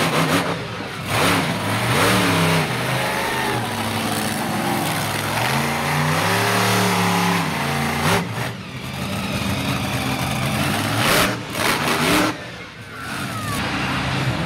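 Monster truck engine revving hard, its pitch rising and falling again and again, with a few sharp bangs about eight and eleven seconds in.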